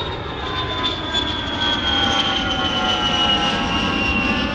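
Aircraft engine noise: a steady rush with a high whine that slowly falls in pitch.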